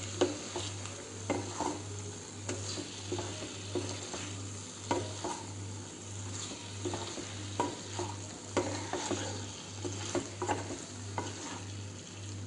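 A black spatula scrapes and knocks against a non-stick pan as paneer and capsicum in masala are stirred, over a steady sizzle of frying. The scrapes come irregularly, about one or two a second.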